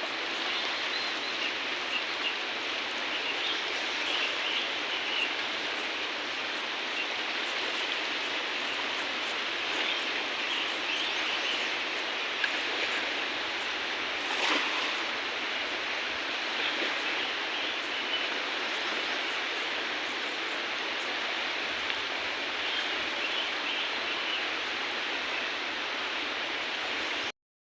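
River water flowing, a steady rushing hiss, with one brief knock about halfway through.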